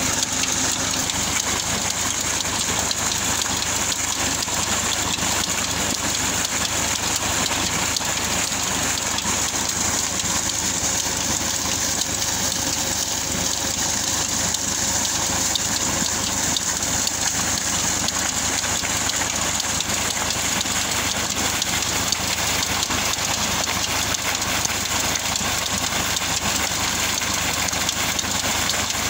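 Thick jet of water gushing from a tubewell's discharge pipe and splashing into a channel, a steady rushing, splashing noise, with the tractor engine that drives the belt-driven pump running underneath.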